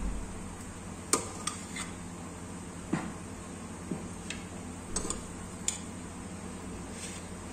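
Steel serving spoon clinking and scraping against an aluminium pressure cooker and a plate as rice is scooped out and served: a scattering of short, sharp clinks, about nine in all.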